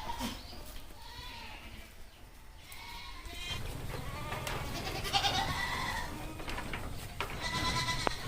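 Several goats bleating, calls overlapping and growing busier about halfway through, as the herd waits for its feed.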